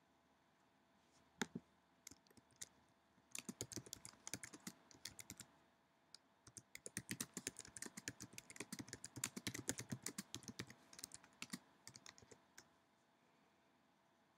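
Typing on a computer keyboard: a few single key clicks, then two quick runs of keystrokes, the second one longer.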